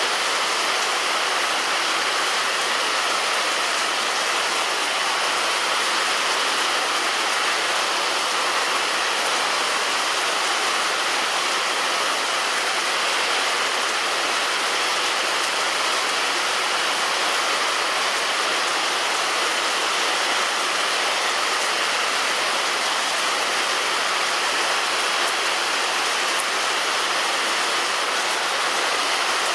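Heavy rain falling steadily on a roof: a dense, even hiss that does not change.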